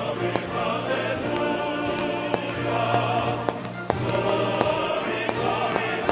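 Choral music with long held sung notes, with a few sharp cracks scattered through it.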